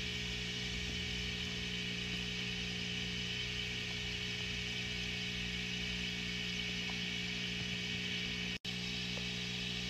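Steady low electrical hum with a constant hiss, cut to silence for an instant about eight and a half seconds in.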